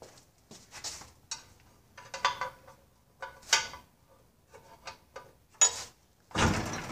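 Metal pry bar clicking and scraping against an outboard powerhead in short, scattered bursts, prying a stuck rear stud loose from its hole. A louder, longer scrape comes near the end.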